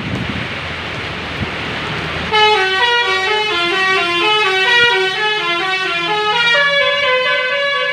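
Bus 'telolet basuri' melody horn playing a quick tune of short stepping notes, starting a couple of seconds in, after a stretch of road and engine noise.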